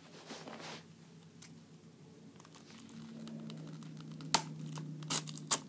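Scissors cutting the plastic wrap on a Blu-ray case, with faint crinkling of the wrap. There are a few sharp snips, one about four seconds in and several more near the end.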